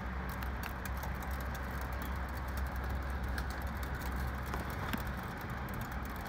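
Small ice pellets from freezing rain ticking in quick, irregular clicks as they hit the ice-crusted metal top of a window air conditioner, over a steady low rumble.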